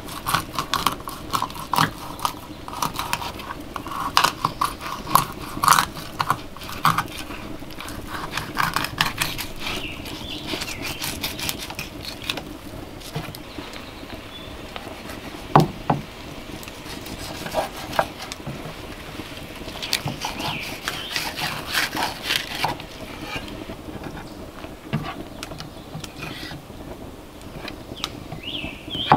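Knife cutting fish fillets on a wooden cutting board: quick taps and scrapes of the blade against the wood, in clusters with a quieter stretch in the middle and one sharper knock about halfway.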